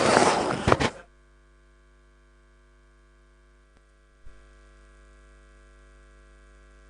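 About a second of loud, noisy bustle of people moving about, which cuts off abruptly. After it comes a faint, steady electrical mains hum, with a faint click partway through and a small bump after which the hum is slightly louder.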